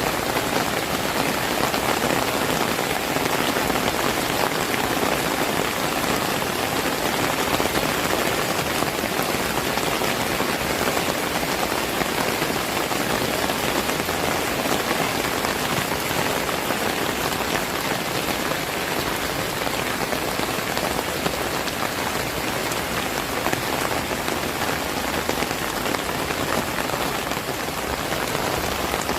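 Heavy rain falling steadily, a dense even hiss of drops with no letup.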